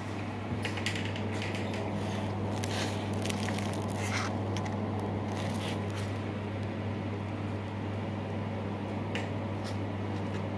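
A smartphone being handled on a styrofoam sheet: short scrapes and crackles, most of them in the first six seconds and one more near nine seconds. A steady low hum runs underneath.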